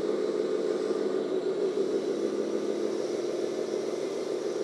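JDM-196 radio-controlled rescue tow truck driving while towing another model truck on its wheel-lift, with a steady running whir.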